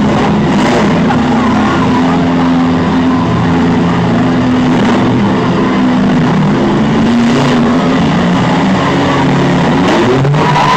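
Several demolition derby vans, trucks and SUVs running at once, a loud mix of engine notes rising and falling as they rev, with a few bangs of vehicles colliding. Near the end one engine revs up sharply.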